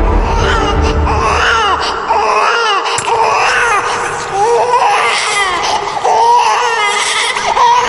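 An infant crying in a string of wavering wails, each cry's pitch rising and falling, used as a creepy horror sound effect; a low rumble under it fades out about two seconds in.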